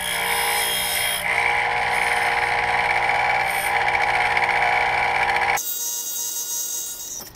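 Tradesman 6-inch bench grinder running with metal held against the wheel, throwing sparks: a steady motor whine under a loud, hissing grind. The grinding stops abruptly about five and a half seconds in while the motor keeps running.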